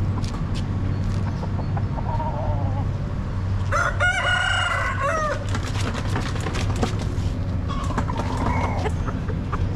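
A rooster crowing once, a long call of about a second and a half starting near four seconds in, with two shorter, fainter calls around two and eight seconds in. A steady low hum runs underneath.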